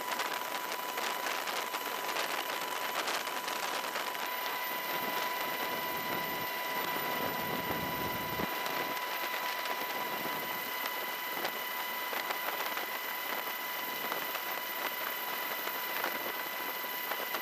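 Steady helicopter turbine and rotor noise with a thin high whine. A deeper rumble builds from about six seconds in and cuts off sharply about two seconds later.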